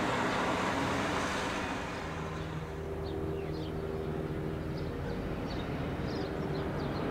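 Electric train running through, led by an FS E.402B electric locomotive, as a steady noisy rumble. About two seconds in it gives way to a quieter, steady low hum.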